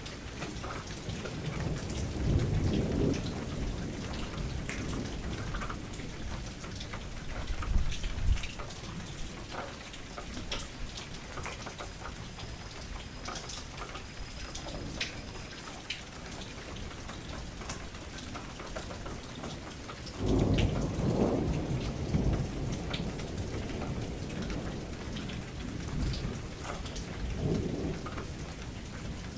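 Steady rain falling, with a dense patter of drops, and several deep rumbles of thunder through it; the longest and loudest rolls in about two-thirds of the way through.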